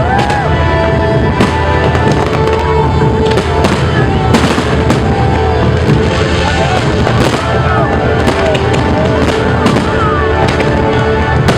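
Fireworks bursting in quick, irregular succession, bang after bang, with music playing under them.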